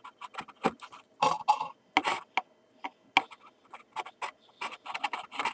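Irregular light clicks and taps from handling the metal mechanism of a disassembled film camera, a dozen or more small sharp ticks at uneven spacing.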